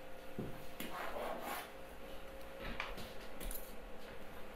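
Light rubbing and scraping noises with a few soft knocks and clicks.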